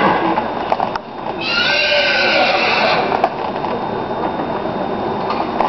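A horse whinnies once, a single call of about a second and a half beginning about a second and a half in.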